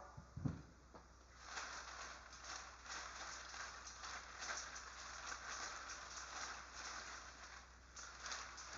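A soft low thud just after the start. Then paper raffle tickets tumble in a turning wire bingo cage: a faint, steady patter and rustle of many small ticks.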